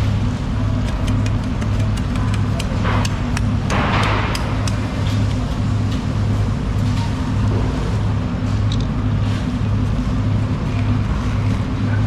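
A motor running steadily with a low, regular throb about twice a second, over which come scattered clicks and a short scraping rustle about four seconds in as a knife and hands work the marlin carcass.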